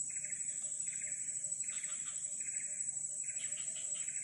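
A chorus of forest animals: a steady high-pitched whine with a pulsing call repeated about five times in four seconds.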